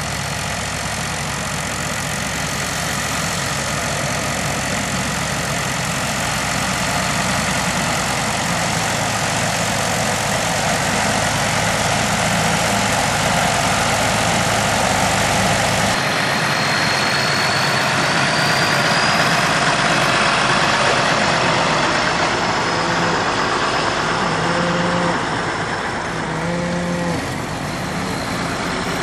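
Tractor engine running with a tractor-driven bale processor, a steady loud mechanical noise as it shreds and spreads straw. About halfway through the sound changes: the low rumble drops away and a faint, slowly rising whine comes in.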